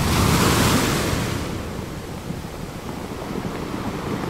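Sea surf washing on a shore: a rush of breaking water that swells over the first second and a half, then settles into a steady wash.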